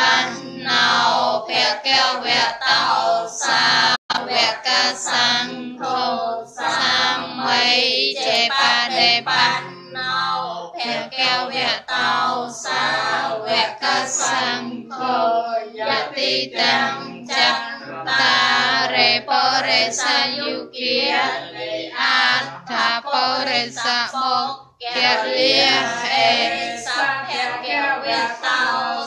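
Buddhist devotional chanting: a group of voices chanting together in a sung, melodic way over a steady low hum.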